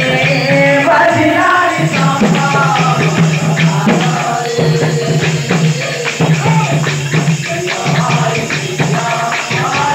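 Live Sambalpuri kirtan music over a PA: a man singing into a microphone above a sustained low drone, with percussion keeping a steady beat.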